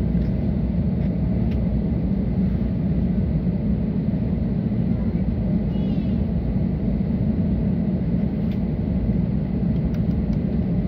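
Steady low rumble inside the cabin of an Airbus A320 standing on the ground, with a faint steady whine on top.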